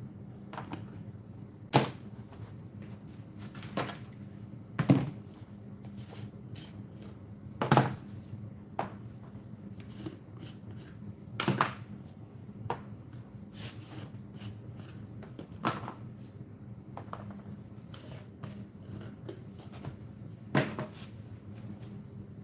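Plastic jars of powdered dye being handled: lids twisted off and set down, jars knocking against a plastic tray, and a few small taps from a spoon. There are about seven louder knocks at irregular intervals and lighter clicks between them, over a steady low hum.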